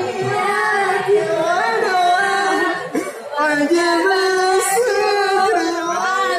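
Singing voices carrying a melody, with gliding and long held notes.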